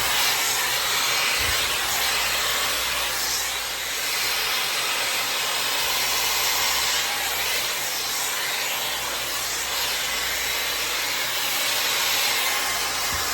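Hot-air styler with its high-speed 110,000 RPM motor, fitted with a round brush attachment, switched on and blowing a steady rush of hot air, rising and dipping slightly in level as it is worked through the hair.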